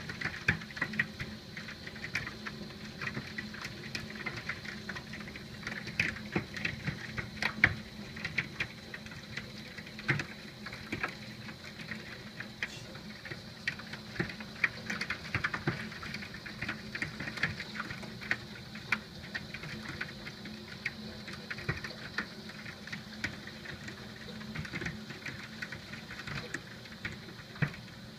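Hailstones falling with rain: a steady hiss dotted with a dense, irregular patter of sharp clicks as the stones strike hard surfaces.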